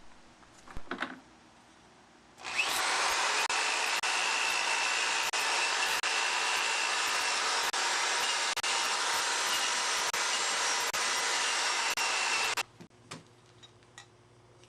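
Power tool, likely a drill fitted with an abrasive disc, running against a rusty steel bicycle frame. It gives a steady whirring hiss that starts about two seconds in and runs for about ten seconds before cutting off suddenly.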